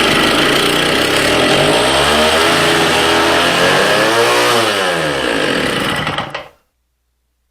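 1969 Rokon two-stroke engine racing with its throttle hung wide open, its pitch swinging up and down twice, then stopping about six and a half seconds in as it is shut off. The throttle stuck because the fuel-tank clamp slipped down and caught the throttle shaft.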